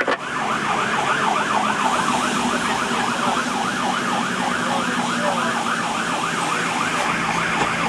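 Fire engine siren on a fast yelp, rising and falling about three times a second, heard from inside the cab over the steady drone of the truck's engine.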